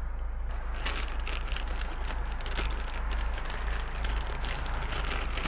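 Close handling noise: a dense run of rustles and clicks begins about half a second in, over a steady low hum.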